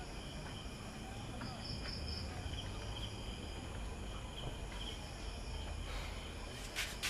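Crickets chirping in a steady chorus, with pulses repeating at an even pace over a low background rumble. There is a brief rustle-like noise near the end.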